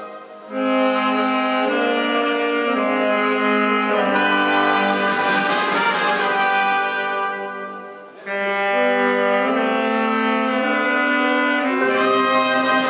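Brass band of trumpets, saxophones and a sousaphone playing long held chords that change in steps. The sound dies away and the band comes back in just after the start and again about eight seconds in.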